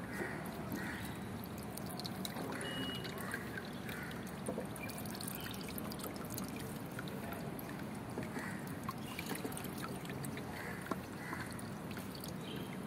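Water poured slowly from a long-handled ladle, trickling over the heads of small gilded statues.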